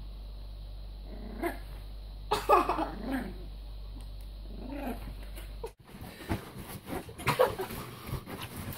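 Yorkshire Terrier puppy making a few short, pitched vocal sounds while it mouths a chew, over a steady low hum. Near the end this gives way to busy rustling of bedding and soft knocks.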